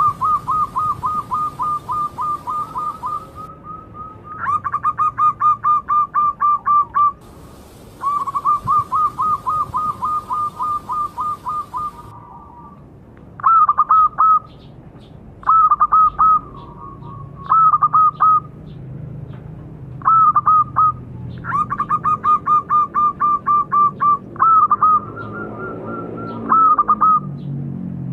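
Zebra doves cooing: runs of quick, evenly repeated staccato coos, about five a second and lasting several seconds each, traded with short phrases of three or four coos.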